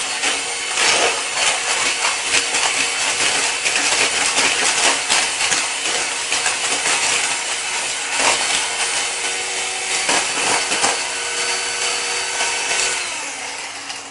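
Electric hand mixer running steadily, its beaters whipping an egg mixture and knocking against the bowl, then winding down and stopping near the end.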